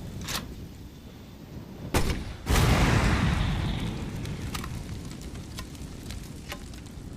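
Grenade launcher sound effect with a flame round: a sharp shot about two seconds in, then half a second later a loud burst that dies away slowly over several seconds. Scattered sharp crackles run throughout.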